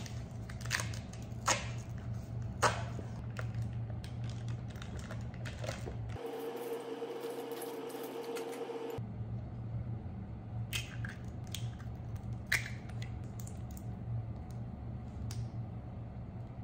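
Food packaging and ingredients being handled at a kitchen counter: cream cheese wrappers opened and blocks dropped into a glass mixing bowl, as scattered clicks, taps and rustles over a steady low hum. For about three seconds in the middle the hum gives way to a faint higher steady tone.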